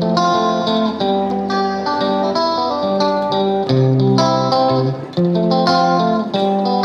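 Background music: a plucked guitar tune with a steady rhythm.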